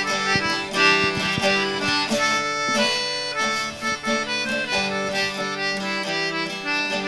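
Background music: held melody notes over a plucked accompaniment.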